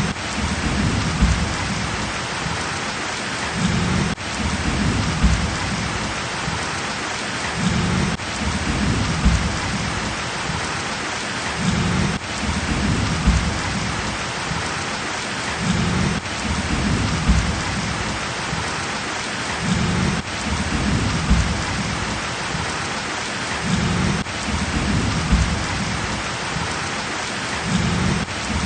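Heavy rain pouring steadily, with a low rumble swelling in about every four seconds in a repeating pattern.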